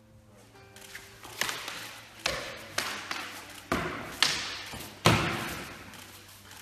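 Weapon blows striking a round Viking-style shield during sword-and-shield sparring: about six heavy hits in quick succession, the last the loudest, each echoing in a large hall.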